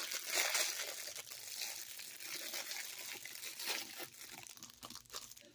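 Packaging crinkling and tearing as a squishy fidget toy is unwrapped, an irregular run of crackles that thins out near the end.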